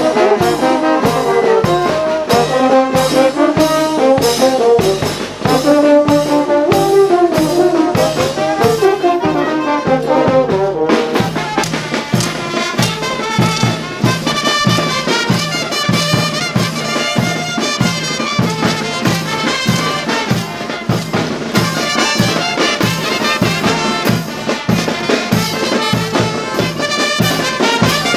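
Brass band playing, trumpets and trombones over a steady drum beat. About eleven seconds in, the lower melody drops out and higher-pitched parts carry the tune.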